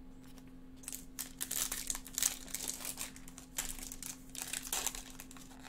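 Foil wrapper of a chrome baseball card pack crinkling and tearing as it is opened by hand, a run of crackles starting about a second in.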